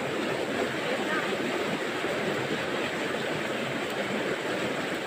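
Steady rushing of a fast-flowing river running high after rain.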